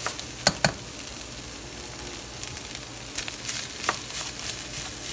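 Ground beef and rice sizzling in a stainless steel pot while a spatula stirs them in. Two sharp taps of the spatula against the pot come about half a second in, and a few more taps and scrapes follow about three to four seconds in.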